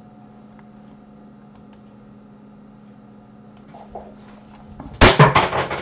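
Computer keyboard and mouse clicking over a steady low electrical hum: a few faint clicks at first, then a loud burst of rapid clattering about five seconds in.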